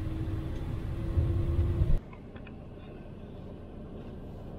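Camper van driving, heard from inside the cab: a low engine and road rumble with a steady hum. About two seconds in it cuts off abruptly to a much quieter, even background noise with a few faint ticks.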